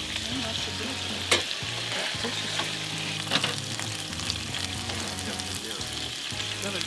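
Goose breast frying in a pan: a steady sizzle with small crackles and two sharper pops, the first about a second in and the second about two seconds later.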